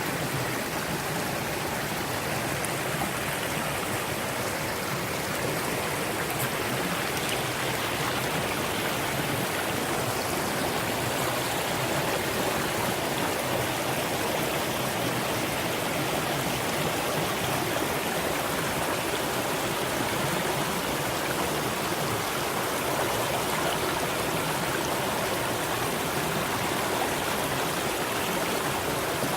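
Mountain stream rushing over rocks, a steady, even flow of water.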